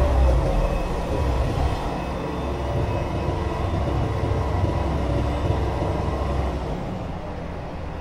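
Komatsu hydraulic excavator's diesel engine running under load as it swings a full bucket, a steady low rumble. The rumble drops off about seven seconds in and the sound grows a little quieter.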